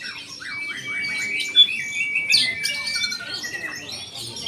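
Oriental magpie-robin (kacer) singing a fast, varied run of whistles, short trills and harsh chirps that imitate lovebird calls, with one sharp, loud note about one and a half seconds in.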